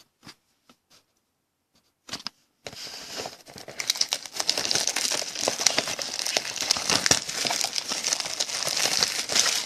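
A few light clicks, then, about two and a half seconds in, plastic wrap starts crinkling and tearing continuously as the shrink wrap is pulled off a sealed box of trading cards.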